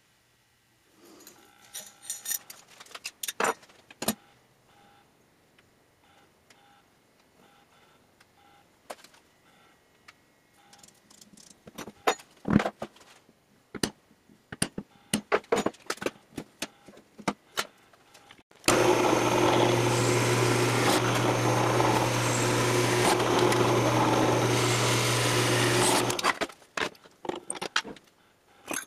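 Scattered light metal clinks and taps on a steel ammo can, with one sharper tap about midway. Later a drill press runs with a steady hum for about seven seconds, drilling the can's steel lid, then stops suddenly, and clinks follow.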